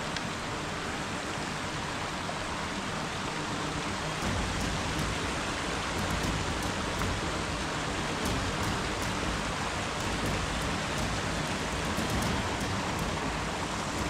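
Small rocky mountain creek rushing and splashing over stones: a steady hiss of running water.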